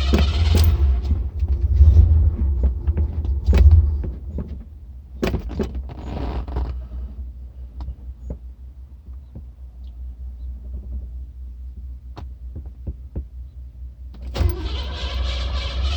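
A Cadillac's starter cranking the engine, stopping just after the start, then a low rumble with scattered clicks that fades into a quieter stretch; about 14 and a half seconds in the cranking starts again. It is a hard cold start on an engine the owner calls flooded, sputtering without catching.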